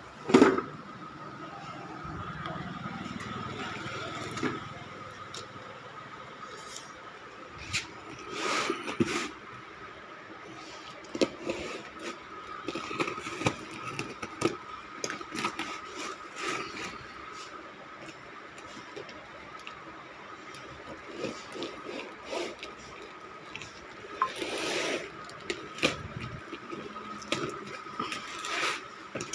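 A cardboard parcel wrapped in plastic film and packing tape being handled and opened: crinkling plastic, scrapes and knocks on the cardboard, with longer rustling stretches about a third of the way in and near the end, and tape being cut with a box cutter at the very end. A steady high-pitched hum sits underneath.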